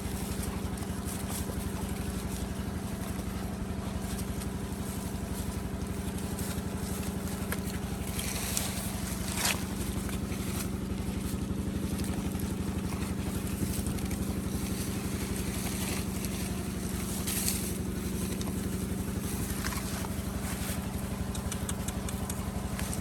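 A steady low motor hum, like an idling engine, with a few brief scrapes or clinks.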